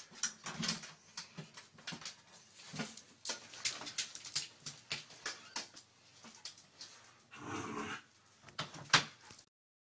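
A dog squeezing through a small pet door: a run of knocks and scrabbling clicks from the flap and its claws on the tile floor, with some whimpering. The sound cuts off suddenly near the end.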